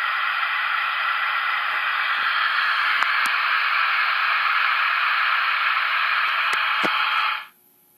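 Steady receiver static hissing from the HR2510 radio's internal speaker, with a few faint clicks; it cuts off abruptly about seven and a half seconds in.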